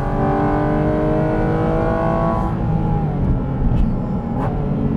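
Porsche 718 Cayman GT4 RS's naturally aspirated 4.0-litre flat-six accelerating hard, heard from inside the cabin, its pitch climbing steadily. About two and a half seconds in, the engine note drops away, leaving road and tyre rumble.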